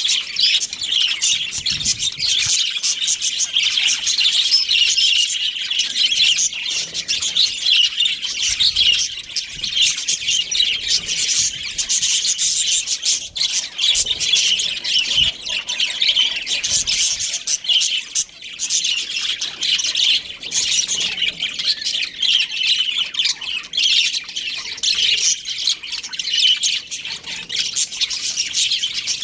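Budgerigars chirping and chattering continuously, many quick overlapping high chirps and squawks with no pause.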